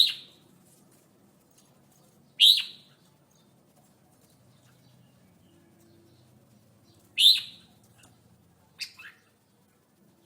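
Red-whiskered bulbul calling: three loud, short, clear high calls a few seconds apart, then a softer two-note call near the end.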